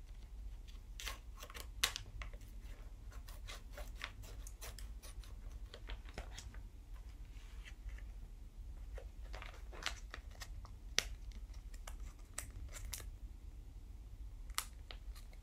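Merchandise packaging being handled and opened by hand: scattered short rustles and clicks over a low steady hum.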